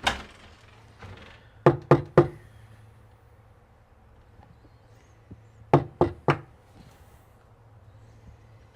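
Knocking on a door: two sets of three quick knocks, a few seconds apart.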